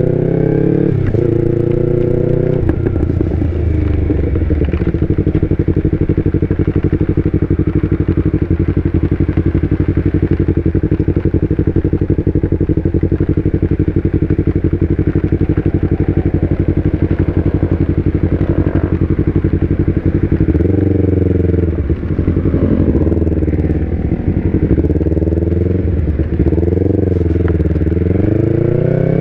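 Yamaha R25 V2's parallel-twin engine through an Akrapovic exhaust, heard from the rider's helmet while riding. Revs rise and fall briefly at first, then the engine runs at a steady pitch for a long stretch, and near the end the revs climb and drop repeatedly as it accelerates through gear changes.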